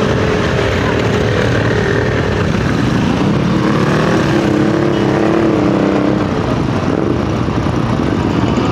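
Motorcycle engines running, their pitch rising and falling as they rev.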